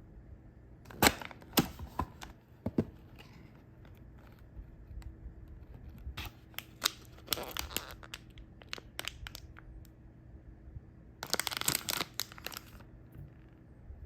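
Snack packaging being opened by hand: plastic wrapping crinkling and tearing in three bouts of sharp crackles, the longest and densest near the end.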